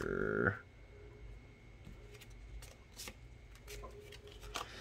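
Pokémon trading cards being leafed through in the hand and slid into a binder's plastic sleeves: scattered light rustles and clicks.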